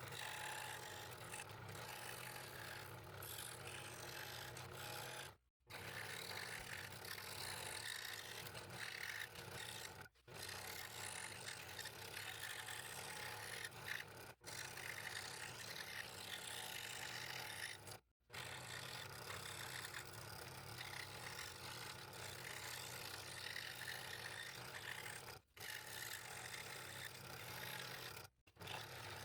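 Scroll saw running with a fine number 3 blade cutting out thin wood fretwork parts: a steady mechanical hum with a scraping cutting noise, broken by about six brief silent gaps.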